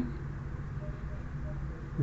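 Room tone in a pause between speech: a steady low hum with faint hiss, and a faint brief tone about a second in.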